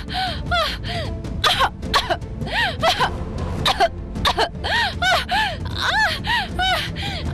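A woman's choking, gasping cries: short strangled cries in quick succession, each rising and falling in pitch with a harsh rasp, over background music.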